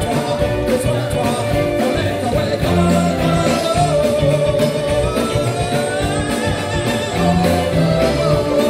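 Live Cajun-zydeco band playing a tune: fiddle, button accordion, trombone and saxophone over a drum kit, with a sousaphone playing a repeating bass line.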